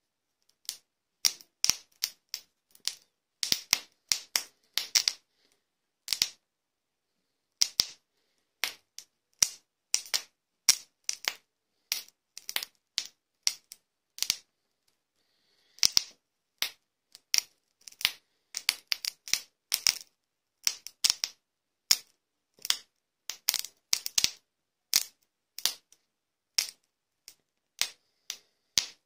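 Charcoal grill crackling under skewered chicken tikka pieces: irregular sharp pops, sometimes several in quick succession, with a short lull about halfway through.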